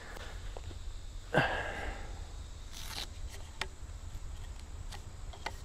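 Handling noise from a tent's nylon stuff sack as a carbon tent pole is drawn out: a loud rustle about a second and a half in, a brief hissing swish near three seconds, then several light clicks and taps.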